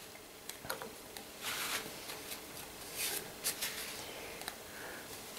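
Faint scratching and rubbing of a small hand tool on wood and MDF in short, irregular strokes, as excess glue is cleared from the edges of the jig.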